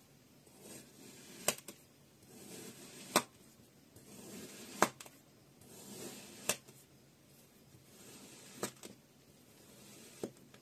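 Knife slicing through kinetic sand: six strokes, each a soft gritty hiss as the blade pushes through the sand, ending in a sharp click as it meets the table.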